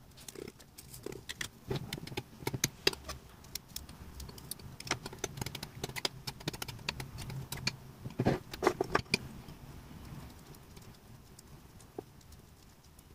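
A metal spoon stirring chopped tomatoes in a ceramic bowl, clinking and scraping against the bowl in quick, irregular taps, with bunches of sharper clinks about two seconds in and again around eight seconds.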